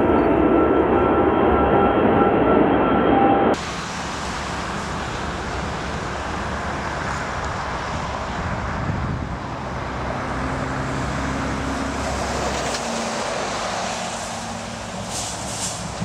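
Airbus A380's four jet engines running loud as it climbs out after takeoff; about three and a half seconds in the sound cuts abruptly to a quieter, steady jet roar from an A380 approaching to land.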